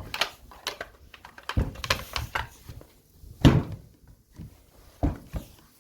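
Handling knocks and clicks of hard objects being set down and moved, a string of sharp knocks with the loudest about three and a half seconds in.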